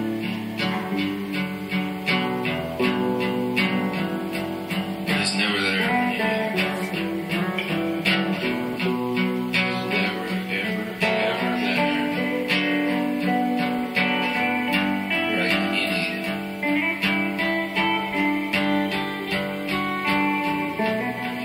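Instrumental stretch of a band's song: a strummed guitar-type string instrument keeps a quick, steady rhythm under held notes, with no singing.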